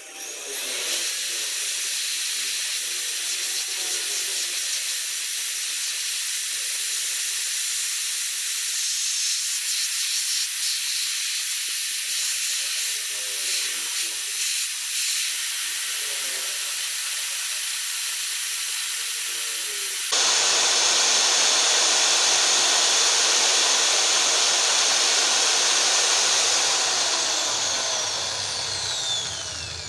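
Electric hand drill running steadily, spinning a tool in the connecting rod's small-end bore to clean out the seat of a piston pin that seized from oil starvation, so the rod can be reused. About two-thirds of the way through it gets louder, and near the end it winds down with a falling whine.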